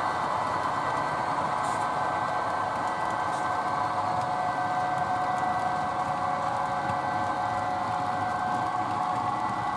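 HO scale model train running on the layout: a steady whine holding several fixed pitches over an even rushing noise.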